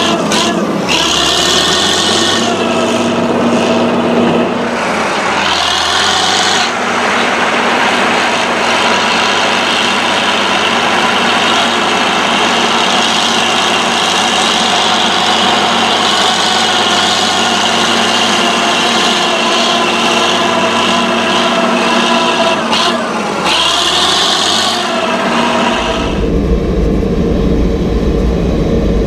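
Fiat Allis AD14-C crawler dozer's diesel engine running at full power under heavy load, pushing soil through hard ground, with a few short spells of harsh, high-pitched scraping noise. Near the end the sound switches to inside the cab, deeper and heavier.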